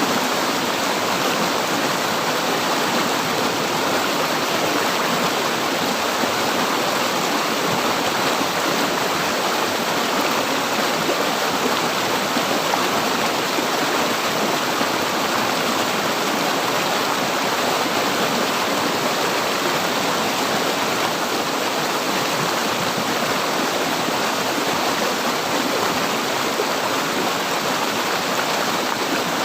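River water flowing over rocks in a steady, even rush with no breaks or changes.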